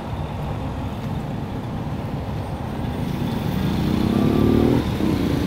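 Street traffic rumbling steadily, with a vehicle engine speeding up in a rising tone in the second half.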